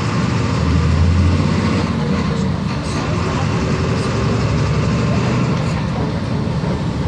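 Volkswagen 17.230 EOD bus engine running steadily, with a brief swell in its low note about a second in.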